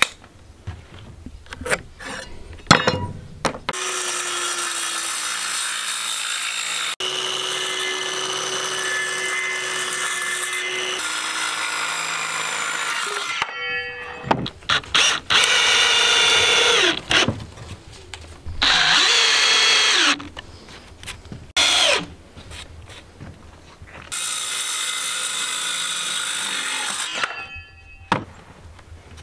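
Cordless circular saw cutting 2x4 lumber: a steady high whine of about ten seconds, then several short bursts, then another run of a few seconds. A few light wooden knocks near the start.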